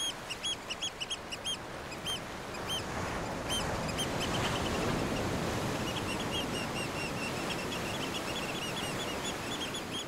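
Birds calling: a run of short, high piping calls, two or three a second at first and then more scattered, with quicker, fainter chattering calls in the last few seconds, over a steady background hiss.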